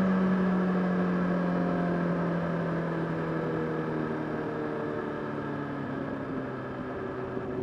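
Honda CBR600RR (PC37) inline-four motorcycle engine heard from the riding bike, its revs falling steadily as the bike slows, with a small further drop in pitch about six seconds in.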